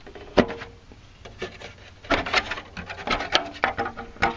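Plastic engine cover on a Mercedes M112 V6 being pulled and worked off its mounts. There is a sharp snap about half a second in, then a dense run of clattering and rubbing knocks through the second half.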